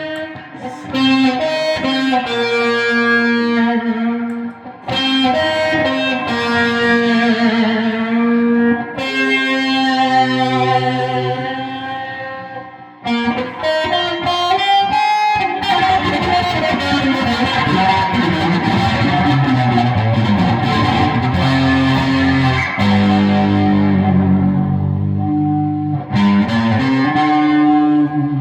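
Guitar music played through effects: held notes and chords, with a sliding pitch bend about halfway through.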